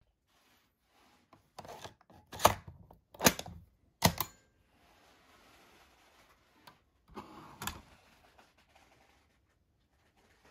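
Sharp clicks and knocks of hard plastic audio gear being handled: four loud clicks in the first half, a faint rustle, then another cluster of clicks about seven seconds in.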